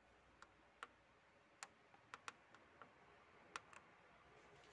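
Near silence broken by faint, sharp clicks, about nine at irregular intervals.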